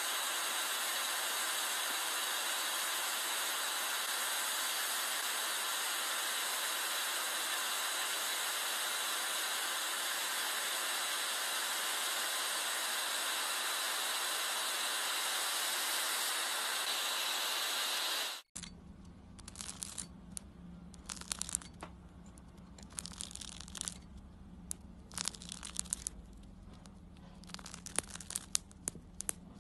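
Handheld blow torch flame hissing steadily as it melts a brass padlock. About two-thirds of the way through the hiss cuts off abruptly, leaving quieter irregular crackles over a low steady hum.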